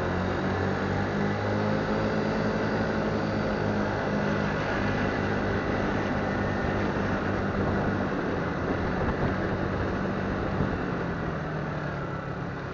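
A motorbike engine running steadily at low road speed, with a low, even hum, amid street traffic noise. The sound eases off slightly near the end.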